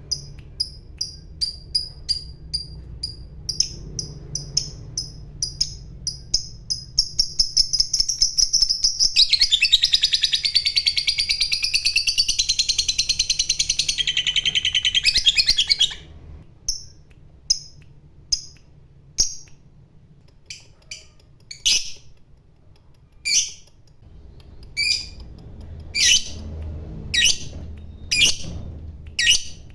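Lovebird calling: short shrill chirps that come faster and faster, running about nine seconds in into a long unbroken rapid chattering trill, the 'ngekek' call, for some seven seconds. It then breaks back into separate chirps about a second apart.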